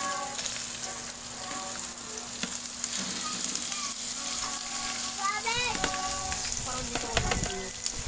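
Pork belly slices sizzling steadily on a hot grill pan. Metal tongs click now and then as the strips are turned.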